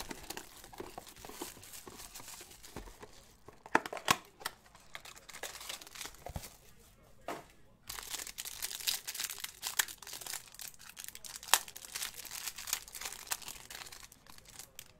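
Plastic wrapping on a trading-card box and its packs crinkling and tearing as hands open them, with a couple of sharp snaps, one about four seconds in and another near twelve seconds. The crinkling gets busier and louder about halfway through.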